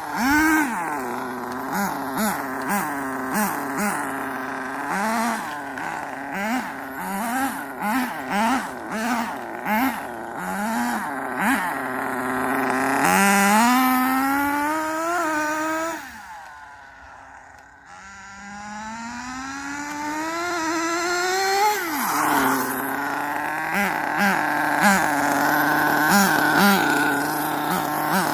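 Radio-controlled car with a two-speed transmission being driven: its motor whine rises and falls in a long string of short throttle blips, then climbs in two longer accelerating runs, the sound dropping away briefly between them.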